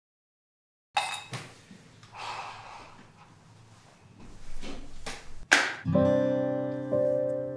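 Soft rustles and light knocks of someone moving about and sitting down, then a sharp knock about five and a half seconds in. Right after it, an acoustic guitar starts a music cue of slow single plucked notes.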